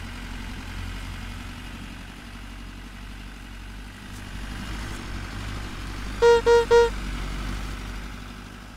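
Cartoon tractor engine running steadily with a low rumble, easing off toward the end. About six seconds in, the tractor horn gives three short toots, the loudest sound.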